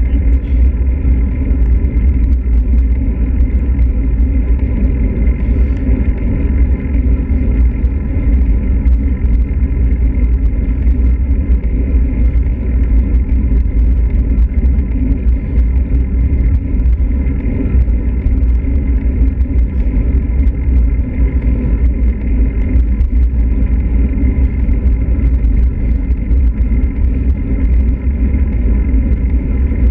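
Steady low rumble of wind on a bicycle-mounted camera's microphone as a road bike rides on asphalt, mixed with tyre and road noise.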